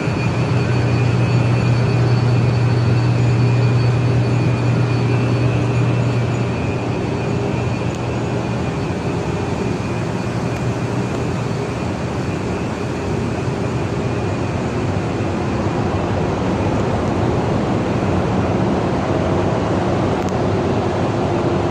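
Building HVAC equipment running: a steady rush of fan and air noise with a strong low hum that fades about six seconds in, and faint steady high whines.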